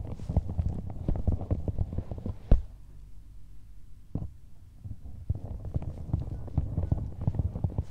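Fingertips tapping and scratching quickly on the metal body of a binaural ASMR microphone, picked up close as dense low thuds, with one louder knock about two and a half seconds in. The tapping stops for a couple of seconds near the middle, apart from a single tap, then starts again.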